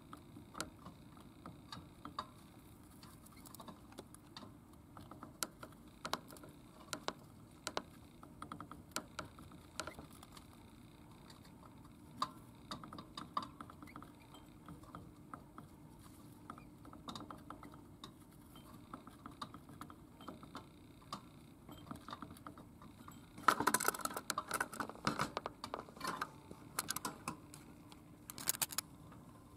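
Budgerigar bathing in a ceramic bowl: light pattering and small ticks from its fluttering wings and splashing, with a louder flurry of splashing and flapping about 23 seconds in and another near the end.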